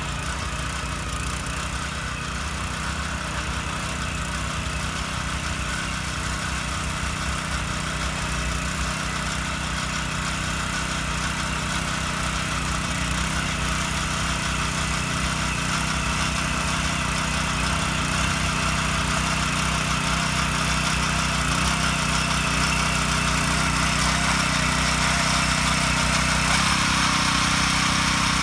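Honda Komame F200 2-horsepower mini tiller's engine running steadily as its tines work through field soil, getting gradually louder.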